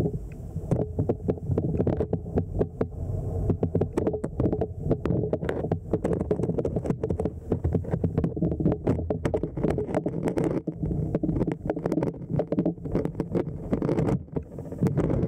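The underwater sound of a flowing stream, heard through a submerged camera: a steady low rumble full of dense, irregular crackling clicks.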